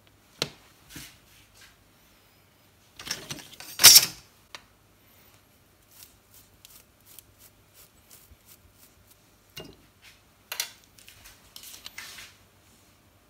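Metal hand tools and small steel parts being picked up, knocked and set down on a workbench: a sharp clink near the start, a louder clatter about three to four seconds in, then a run of light ticks and a few more clinks.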